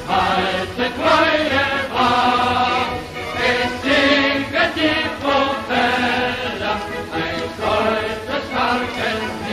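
Background music with a choir chanting, the voices singing together in held notes that change every second or so.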